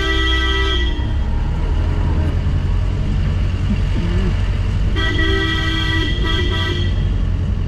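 Jeep's engine running with a steady low rumble, and a vehicle horn sounding in two long honks: one stopping about a second in, another starting about five seconds in and lasting nearly two seconds.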